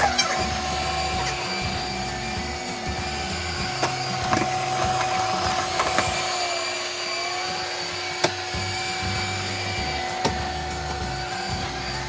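IonVac SmartClean 2000 robot vacuum running on carpet with a steady motor whine and a few light knocks as it bumps into furniture. The whine dips briefly in pitch a little past halfway.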